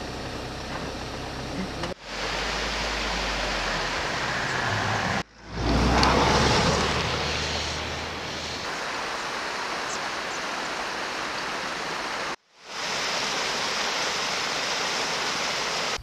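A vehicle driving on a snow-covered road: a low engine rumble under a steady rushing noise. Several abrupt edits break it up, and the rumble drops out partway through, leaving only the rushing noise.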